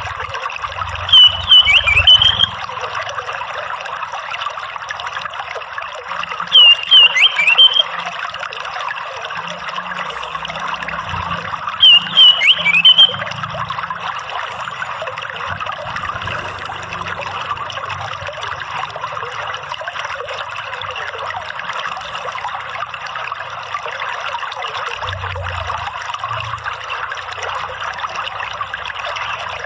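Running water trickling steadily, with three short, loud bursts of orange-headed thrush song, each a cluster of sweeping whistled notes, about five seconds apart in the first half.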